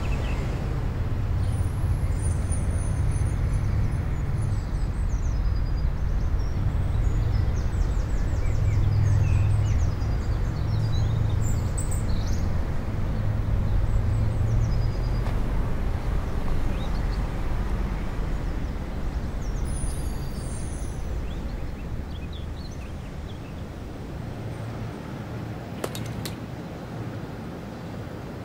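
Steady low rumble that fades somewhat in the last third, with faint high chirps now and then.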